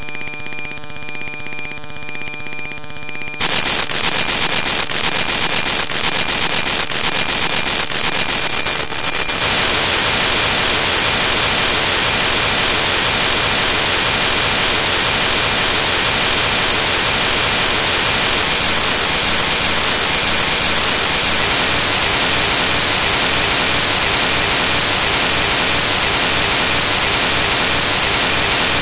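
Loud digital static from a corrupted stretch of the file. It starts as a buzz of steady tones, turns rougher after about three seconds, then from about nine seconds in becomes an even, harsh white-noise hiss.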